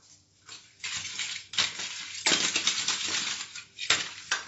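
Hands rubbing marinade into whole mackerel in a stainless steel bowl: a wet rubbing and scraping against the metal, starting about half a second in, with several sharp clinks.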